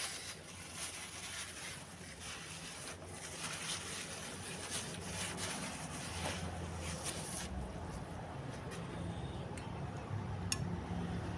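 Close-miked eating of a meatball and noodle soup: crackly, wet mouth sounds with many small clicks. The sounds thin out about seven and a half seconds in, and a low rumble takes over.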